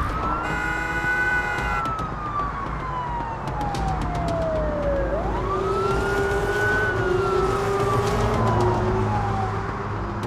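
Siren wailing in two slow cycles, each one rising quickly and then sliding down over several seconds. A steady low drone runs beneath it, and there is a brief blaring chord of steady tones near the start.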